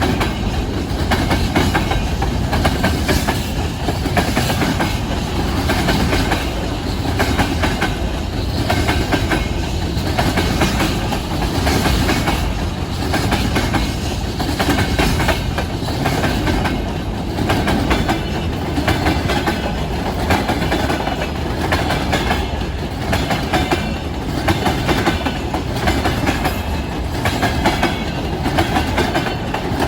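Freight train wagons' wheels clattering over rail joints in a steady, repeating clickety-clack rhythm, beginning to fade right at the end.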